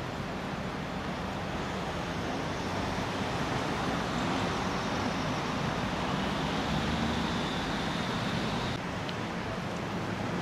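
Steady city street traffic noise: a continuous rumble of passing cars, a little louder in the middle and dropping slightly near the end.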